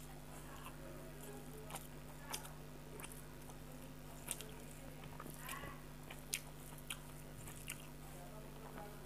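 Faint scattered crunches and sharp clicks of crispy dry-fried small fish and rice being mixed by hand on a metal plate and chewed. The sharpest click comes a little after the middle.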